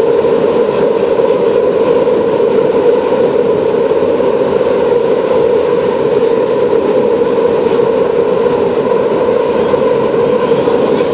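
Berlin U-Bahn F84 train running steadily through the tunnel, heard from inside the car. The noise is loud and unbroken, with a steady drone from the running gear and faint ticks over it.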